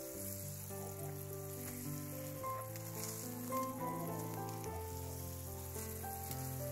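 Steady hiss of water spraying from a hose's shower-head watering wand onto soil, under background music of slow held notes.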